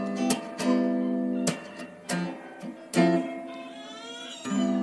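Background music of a guitar strumming chords.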